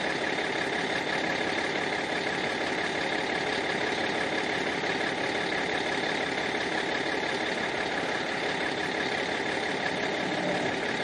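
Bus engine running steadily at an even speed, with no revving.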